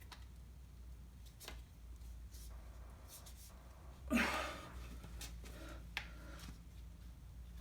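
Faint handling noises as a new rubber tire is worked by hand onto a bandsaw wheel: a few small clicks and one louder rustling burst about four seconds in, over a low steady hum.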